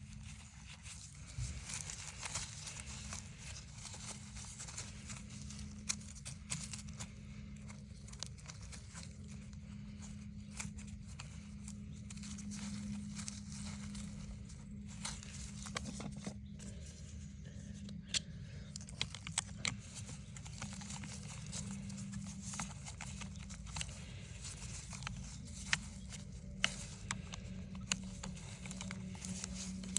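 Scattered small clicks, ticks and rustling from hands handling tools and materials at close range, over a steady low hum.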